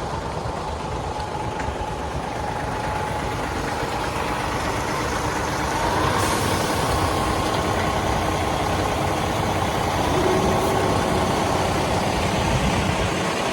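Engine running steadily with a faint whine. About six seconds in, the pitch rises and the sound gets a little louder.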